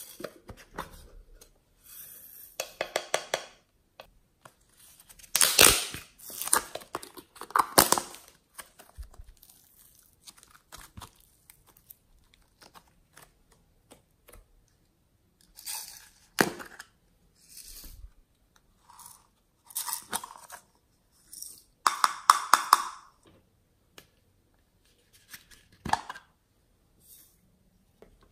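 Small plastic cases of glitter being opened and handled, and glitter and sequins shaken out onto a tray of slime, in a series of short crackly bursts. The loudest bursts come about a fifth of the way in and again at about three-quarters.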